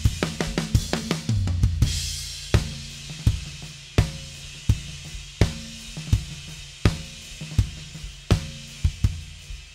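Recorded drum kit playing back through the console's plugins, with the toms run through an expander and compressor. A drum fill with a low tom rings out about a second in and ends on a cymbal crash, then a steady beat follows with hits roughly every 0.7 seconds.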